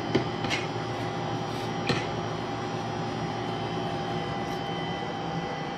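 Three light knocks of a metal slotted spoon against a cooking pot in the first two seconds, as cooked rice is scooped out, over a steady machine hum.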